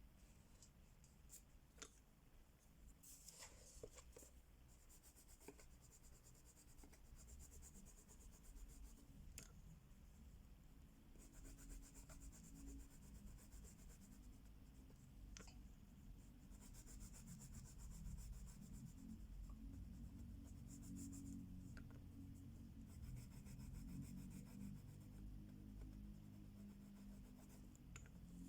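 Faint scratchy scribbling of a Crayola wax crayon rubbed quickly back and forth on coloring-book paper, coming in stretches of fast even strokes. A few light clicks are scattered through.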